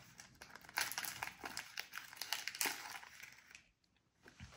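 Snack wrapper crinkling as it is handled and opened, a run of small crackles that stops about three and a half seconds in.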